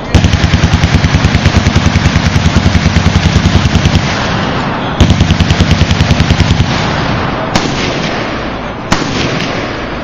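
Machine guns firing on a range. One gun fires a long fully automatic burst of about ten shots a second, stops, and then fires a shorter burst. Two single loud shots follow, over the steady crackle of other guns firing along the line.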